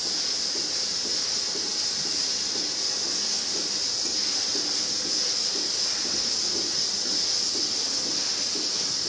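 Lely manure-scraping robot driving slowly over rubber-covered slats, a low running noise with a faint regular pulse of two or three a second, under a constant high hiss.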